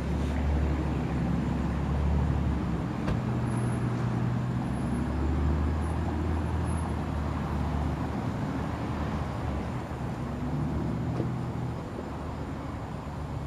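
Approaching train's locomotive running in the distance: a low, steady drone with a rumble, loudest in the first half and easing slightly toward the end.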